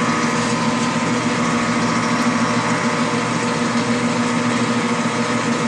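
Metal lathe running with its chuck spinning, a steady hum with several held tones, while the flood coolant pump runs and fills the coolant line.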